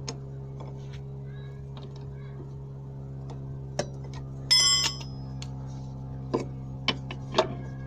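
Metal tools and fittings clinking while a gearbox mount is being worked on: scattered sharp clicks and taps, and about halfway through a bright metallic ring lasting about half a second. A steady low hum lies underneath.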